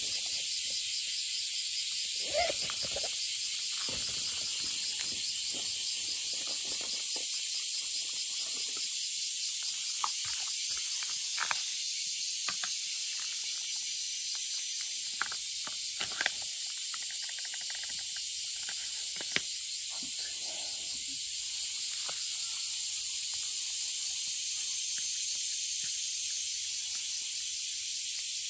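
Dense insect chorus: a steady, high-pitched drone that runs without a break. Over it come scattered short clicks and crunches of cats chewing food from a plate.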